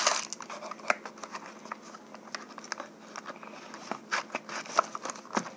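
Light handling noises of a small cardboard box and packing material: scattered soft clicks and rustles, with a few sharper ticks about four to five seconds in.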